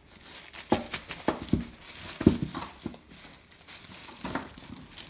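Crinkling and a few short sharp taps as craft materials are handled.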